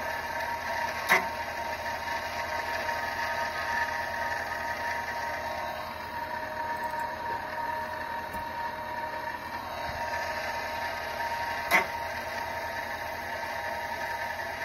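Small brushless outrunner motor spinning on its controller with a steady high electrical whine. The tone shifts slightly about six seconds in and comes back about ten seconds in. Two sharp clicks stand out, one about a second in and another about eleven seconds in.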